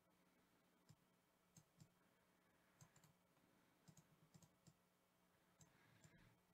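Faint, scattered clicks of a computer mouse and keyboard, about a dozen spread irregularly over several seconds, with a faint steady hum underneath.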